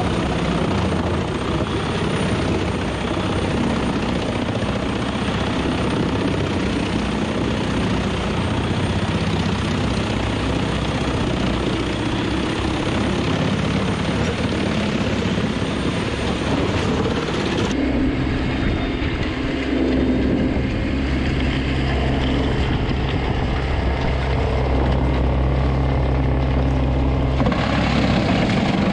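Truck-mounted Jenz HEM 583 drum chipper running under load, a steady, dense mechanical din from the chipping drum and chip-blowing fan. About eighteen seconds in the sound switches abruptly to a steadier low engine drone with less hiss, and the fuller noise comes back near the end.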